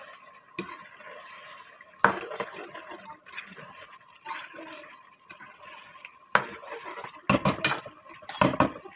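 Metal ladle stirring chicken curry in a metal pot and knocking against its sides: a sharp clank about two seconds in, another after six seconds, and a quick run of clanks near the end.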